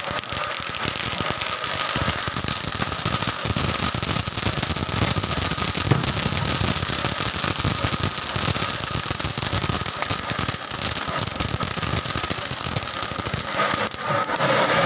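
Ground fountain firework spraying sparks: a steady, dense crackling hiss.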